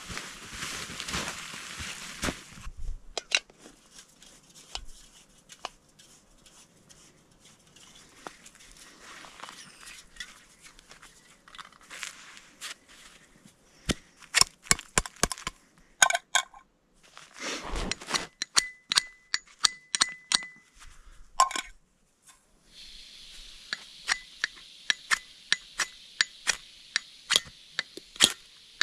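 A backpacking gas-canister stove and a metal cup being handled: a long run of sharp metal clicks and clinks, with a steady high tone for a few seconds in the middle. In the last several seconds gas hisses from the stove while the clicks come quickly, about two or three a second, as the stove is being lit to boil water.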